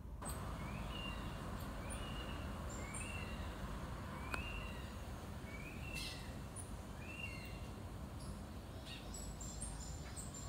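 Birds calling in a series of short chirps that sweep up and then down, about one a second, with fainter very high notes among them, over a steady low background rumble.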